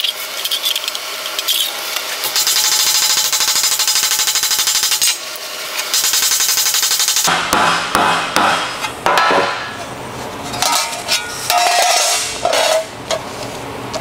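A shaping hammer striking a sheet-steel patch panel on a shot bag, stretching and bulging the metal. For about the first seven seconds the blows are packed into a dense, rapid run mixed with music. After that come separate strikes with a short metallic ring.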